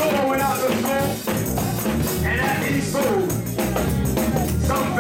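Live church praise music with a tambourine shaking along and a voice rising and falling over it.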